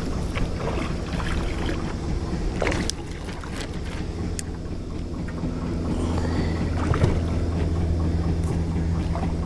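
Spinning reel being cranked to bring in a hooked bass, over a steady low hum. The fish splashes at the surface near the start, and a few sharp knocks follow, the loudest about three seconds in.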